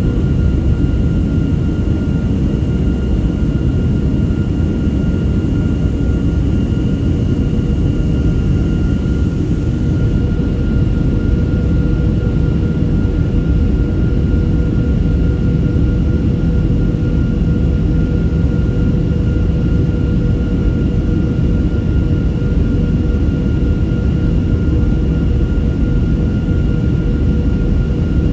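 Steady drone of a Boeing 737's jet engines and airflow heard inside the passenger cabin during descent: a dense low rumble with a constant hum of a few steady tones above it.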